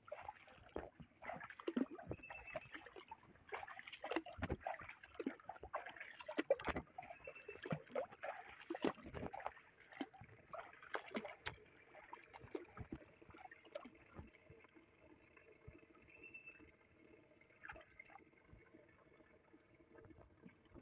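Shallow water in a flooded field sloshing and splashing irregularly, as someone wades through it, with scattered small clicks. After about twelve seconds the splashing dies down and a faint steady hum remains, with a few short high chirps.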